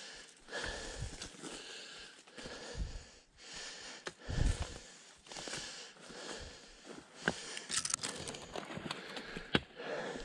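Footsteps crunching and rustling through dry leaf litter and pine needles while climbing a steep wooded slope, with the hiker's breathing, and a couple of sharp cracks in the second half.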